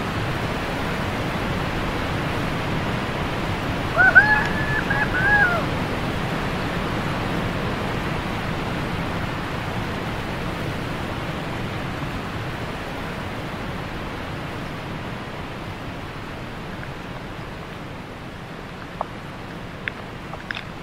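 Steady rushing of a waterfall pouring close beside the microphone, slowly getting quieter. About four seconds in, a brief high-pitched call rises over it for about a second and a half, and a few sharp clicks come near the end.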